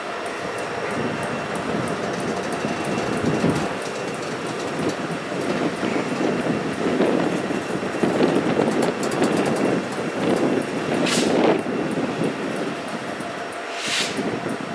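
Double-stack intermodal well cars rolling slowly past: a steady rumble and clatter of steel wheels on rail. Two brief high hisses come near the end.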